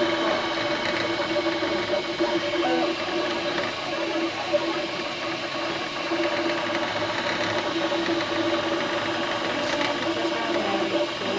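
MakerBot Replicator 3D printer running mid-print: a steady motor whine at a couple of fixed pitches, over the hiss of cooling fans. The pitches shift briefly a few times as the printhead changes moves.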